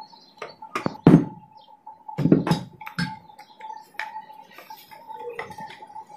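Irregular metal clinks and knocks from a tool working a nut inside an alternator housing and the metal housing and stator being handled. A faint steady high tone runs underneath.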